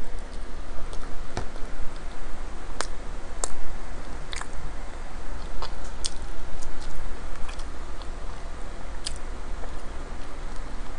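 Close-miked chewing of pizza in the mouth, with scattered, irregular sharp clicks.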